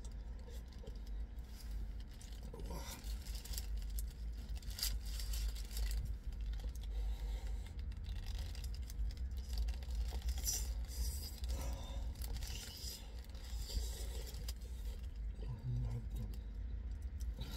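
Someone eating a wrap in a car: the paper wrapper crinkles and rustles in short bursts as it is handled and bitten, with chewing, over a steady low rumble.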